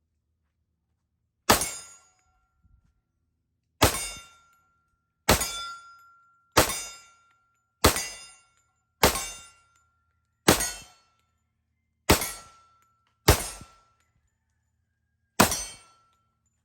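Ten .45 ACP shots from an FNX-45 Tactical pistol, fired one at a time at an uneven pace of roughly one every one to two seconds. Most shots are followed by the short ringing ping of a steel target being hit.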